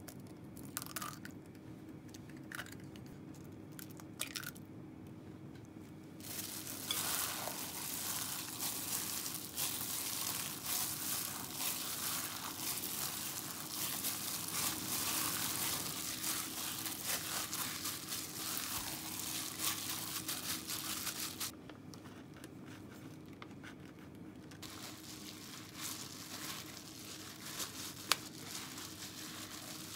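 A hand in a thin plastic glove kneading raw ground meat in a glass bowl: wet squelching and crinkling of the glove, dense and steady through the middle, pausing briefly about two-thirds through, then resuming more lightly. Before that, in the first few seconds, a few light taps as an egg is cracked over the meat.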